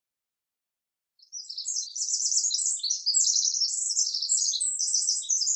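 Small songbird chirping and twittering in rapid high-pitched trills, starting about a second in.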